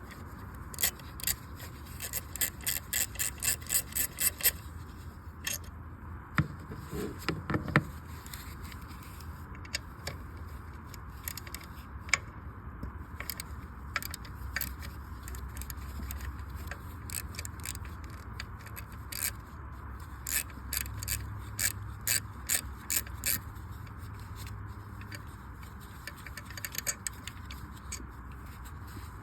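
Ratchet wrench clicking in quick runs while 10 mm bolts on the coil pack are loosened, with tool scraping against metal and one short creak about seven seconds in.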